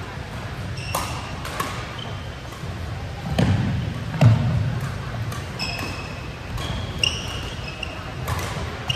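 Badminton rally: sharp, repeated racket hits on the shuttlecock and sneakers squeaking on the court floor. Two heavier low thuds come about a third and halfway through, with voices in the background.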